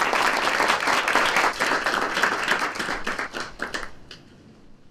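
Audience applauding: dense clapping from many hands that thins to a few last claps and stops about four seconds in.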